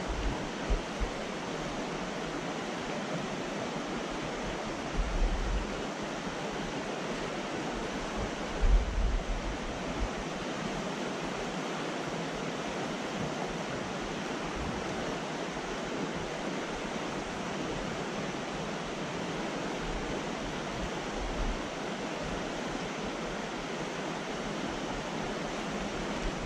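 Fast mountain trout stream rushing over a rocky riffle: a steady rush of flowing water, with a few brief low bumps about 5 and 9 seconds in.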